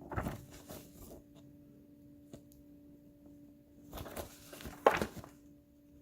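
Plastic model kit runners being handled, with rustling at the start and again about four seconds in, and one sharp knock just before five seconds. A faint steady hum runs underneath.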